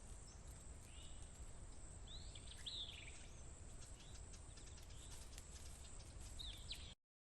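Faint outdoor ambience with a steady high hiss and a few short, down-sweeping bird chirps, cutting to silence near the end.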